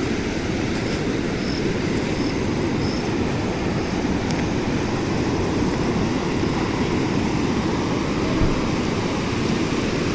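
Swollen monsoon river rushing steadily, its water flowing under strong pressure.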